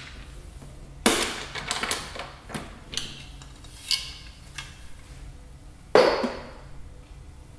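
Light wooden knocks and clicks as a timber sash window's batten rod is unscrewed and lifted out, with a louder knock about six seconds in as the bottom sash is handled.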